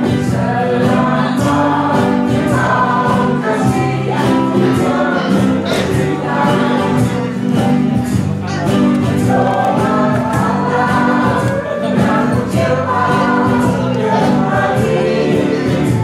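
A choir singing a song with a small live band: steel guitar, guitars, bass guitar and percussion, with a steady beat from the strummed and struck strokes.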